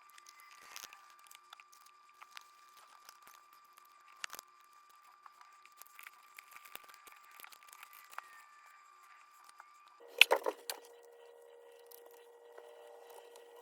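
Faint clicks and rustles from handling small parts, then a short burst of loud clattering clicks about ten seconds in.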